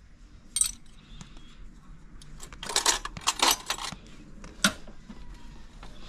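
Small metal parts and tools clinking and tapping, a few sharp clicks with a cluster in the middle, as screws and parts are handled during motorcycle speedometer work.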